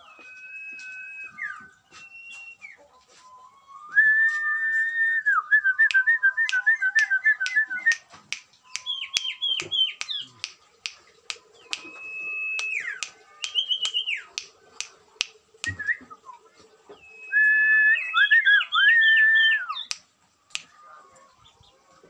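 Sirtu songbirds singing: bouts of clear whistled notes, some held steady, some in fast warbling trills and quick runs of falling notes, separated by short pauses and mixed with sharp ticks.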